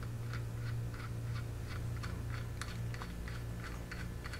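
Steel hex nut spun by finger onto a threaded rod of a bearing-puller tool, giving light metallic clicks about three a second. A steady low hum runs underneath.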